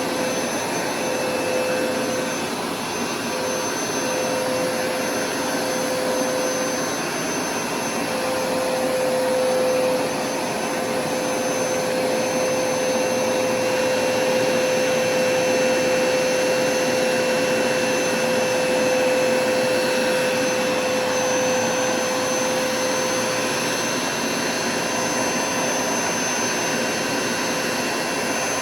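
Hoover carpet-cleaning machine running steadily, its suction motor giving a constant whine over a rushing air noise.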